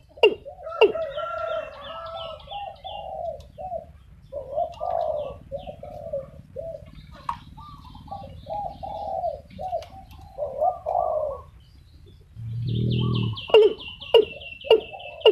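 Watercock (cúm núm) calling: a run of sharp, evenly spaced notes about two a second, a long string of short gurgling notes, and one deep booming call about 12 seconds in, followed by a higher rapid buzzing run near the end.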